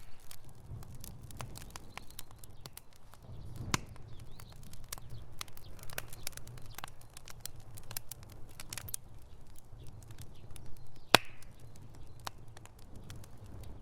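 Fireplace fire crackling: irregular sharp pops and snaps over a steady low rumble of the flames, the loudest pop about eleven seconds in.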